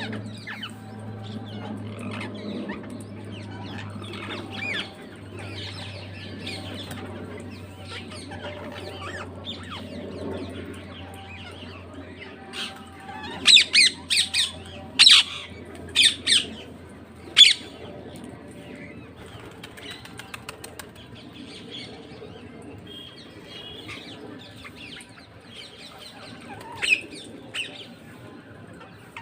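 Parrots calling, with frequent short chirps and squawks and a loud run of about six sharp shrieks about halfway through, then one more near the end.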